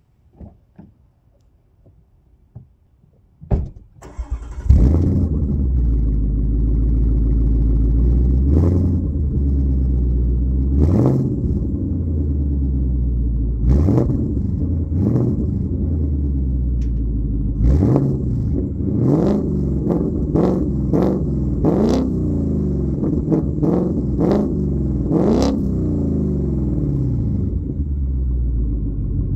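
Ford Mustang Mach 1's 5.0-litre V8 starting through a REMUS cat-back exhaust with valved rear silencers. After a few faint taps, the starter turns about four seconds in and the engine catches with a loud flare, then settles to idle. It is revved in short blips, a few spaced out at first and then many in quick succession, before dropping back to idle.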